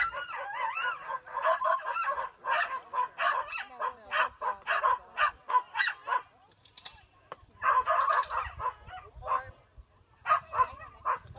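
A dog barking and yipping in rapid, high-pitched volleys of several barks a second, pausing briefly about two thirds of the way through and again near the end.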